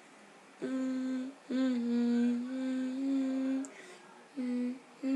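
A person humming with the mouth closed: several long, steady, level-pitched notes separated by short breaks, with two shorter notes near the end.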